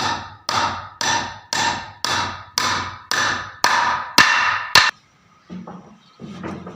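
Hammer blows in a steady rhythm, about two a second, each with a short ringing tone; they stop about five seconds in, followed by a few faint knocks.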